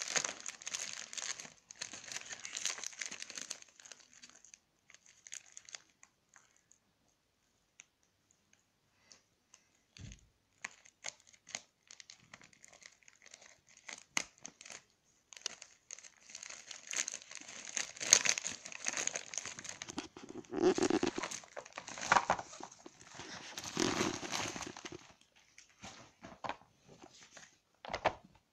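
Plastic mailer bag being torn open and handled, crinkling and tearing in irregular bursts with a pause of several seconds; a few short knocks near the end.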